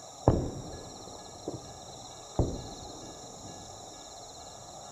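Distant firework shells bursting: three booms, the first and loudest just after the start, a smaller one about a second and a half in, and another strong one about halfway through, each trailing off in a rumbling echo.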